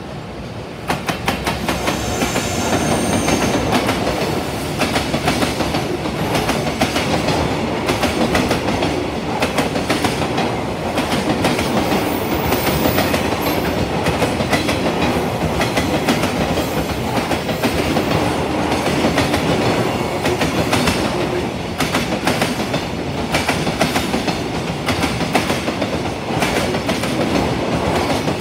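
JR Freight EF210 electric locomotive passing close by, followed by a long train of container flatcars. Wheels clack over the rail joints in a continuous run of rhythmic clicks over a steady rolling rumble, which gets louder about a second in as the train draws alongside.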